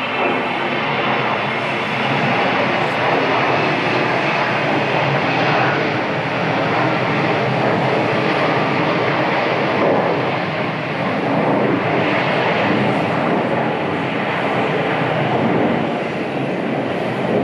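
Jet airliner's engines running, a steady rushing noise that swells and eases slightly.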